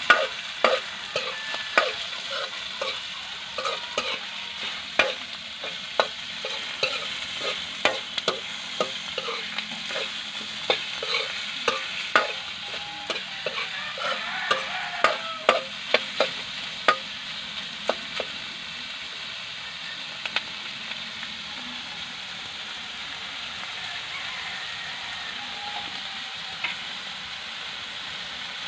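Chopped meat sizzling as it fries in an aluminium wok, stirred with a utensil that scrapes and clacks against the pan about twice a second. The stirring stops about two-thirds of the way through, leaving a steady sizzle.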